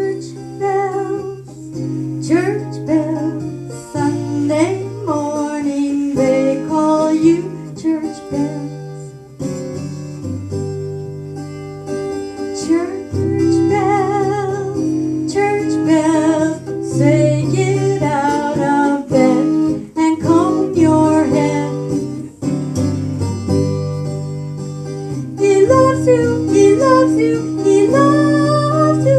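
A country song played as music: a melody sung by a woman with vibrato and sliding notes, over plucked acoustic guitar and steady bass notes.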